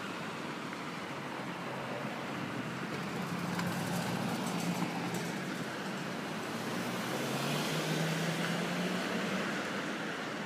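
Street traffic: a steady hiss of passing cars with a low engine hum that steps up slightly in pitch and swells about seven or eight seconds in.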